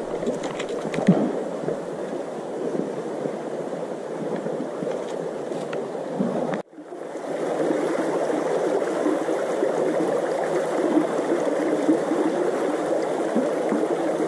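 Shallow river water running over rocks in a small riffle, a steady babble. About halfway through it cuts out abruptly, then fades back in slightly louder.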